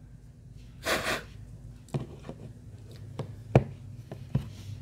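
A short breath out through the nose about a second in, then a handful of sharp plastic clicks and taps as a battery is set into the open back of a BQ Surf smartphone and pressed into place. The loudest click comes about three-quarters of the way through.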